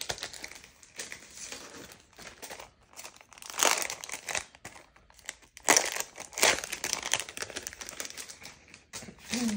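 Packaging crinkling and rustling in irregular bursts as thin metal cutting dies are pulled out of it by hand, loudest about four and six seconds in.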